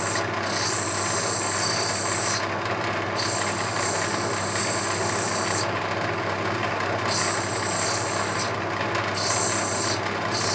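Lapidary diamond grinding wheel motor running steadily, with a rough opal pressed against the wet wheel in four spells. Each contact gives a high grinding hiss that stops when the stone is lifted off to check the colour, most clearly about six seconds in.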